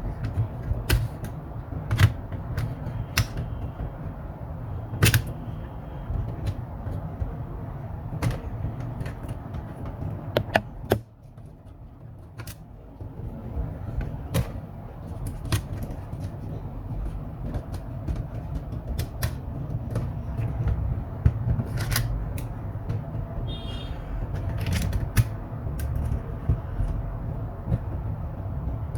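Scattered light clicks and knocks of a laptop's plastic parts and tools being handled during disassembly, over a steady low rumble.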